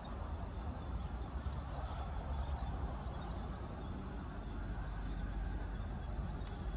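Steady outdoor background noise with a low rumble, with no distinct events.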